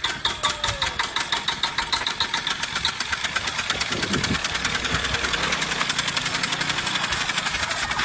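Small motorcycle engine mounted at the back of a homemade log-framed bike, running with even firing beats that grow quicker as the bike pulls away.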